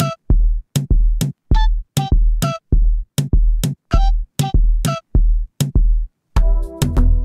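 Background music: an electronic track with a drum-machine beat at about two beats a second, each hit a deep bass thump with a short pitched blip. After a brief gap near the end, held synth chords come in.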